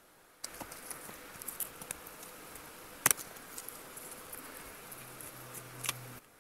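Small products and their packaging being handled: light rustling with scattered clicks and taps, and one sharp click about three seconds in. It starts and cuts off abruptly.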